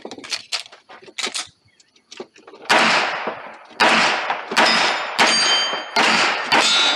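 A handgun fires six quick shots at steel targets, starting about two and a half seconds in. The plates ring clearly after the hits.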